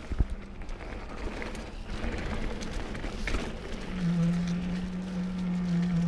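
Camera gimbal motor making a steady low buzzing hum, an awful vibrating sound, which comes in about four seconds in. Under it, the rush and rattle of a mountain bike rolling fast down a dirt trail covered in leaves, with a sharp knock just after the start.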